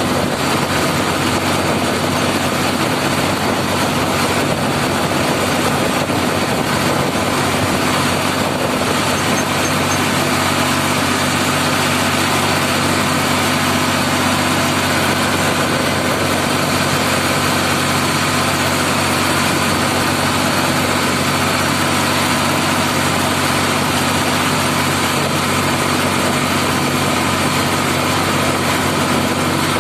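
Ford 3600 tractor's three-cylinder engine running steadily at full speed on the road, heard from the driver's seat, with no change in pace.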